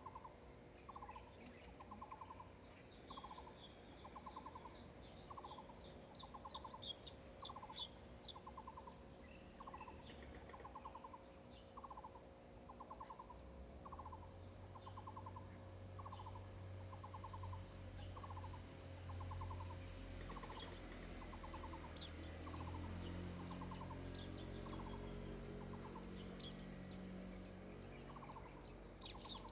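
Birds calling: a low, pulsed call repeated about once a second, with scattered higher chirps over it. About halfway in, a faint low hum of a distant motorboat engine joins in.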